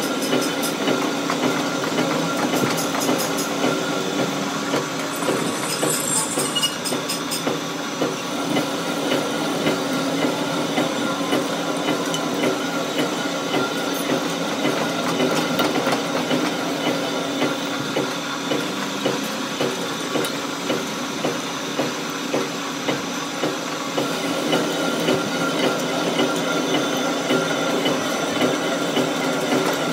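Metal lathe running while screw-cutting threads on a heavy steel trolley tube: a steady mechanical drone with several held tones, and a regular knock about once a second.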